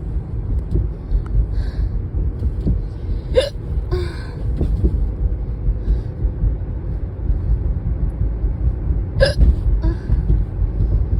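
A person hiccuping twice, about three and a half seconds in and again near the end, each sharp hiccup followed by a brief voiced sound, over the steady low rumble of a car on the road inside the cabin.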